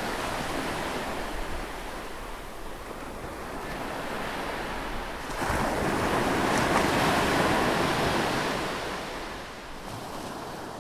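Ocean surf: a steady wash of waves, with one bigger wave swelling in about halfway through and easing off again.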